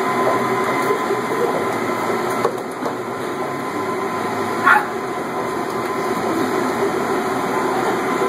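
Steady rush of air with a faint whine from the blower system feeding foam-ball air cannons, with a few faint pops as balls are fired. A short high squeal cuts through about five seconds in.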